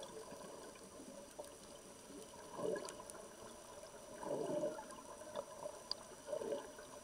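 Underwater sound through a camera housing: a scuba diver's exhaust bubbles gurgling in three short bursts about two seconds apart, over faint hiss and scattered small clicks.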